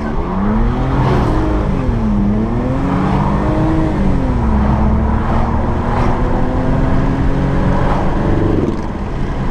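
BMW 323i E46's 2.5-litre straight-six engine under way: its pitch climbs, drops about 2 seconds in, climbs again, drops once more, then holds steady before easing off near the end.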